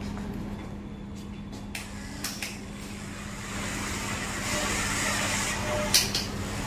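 A wired model rover's small electric motor whirring and its wheels rolling on a tiled floor, the whirr growing from about halfway through. A few sharp clicks, the loudest near the end.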